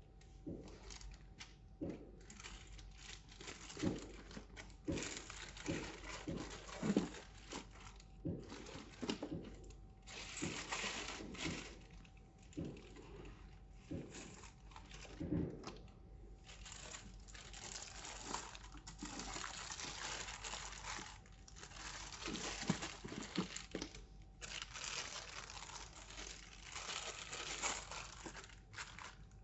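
Packaging crinkling and rustling as it is handled, in repeated bursts with small clicks.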